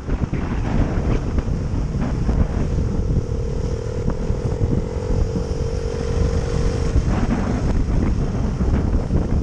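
Wind buffeting the microphone on a moving motorcycle, with the bike's engine running underneath. A steady humming note holds for about four seconds in the middle.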